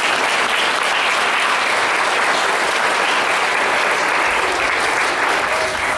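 Audience applauding, steady and loud, beginning to thin out near the end.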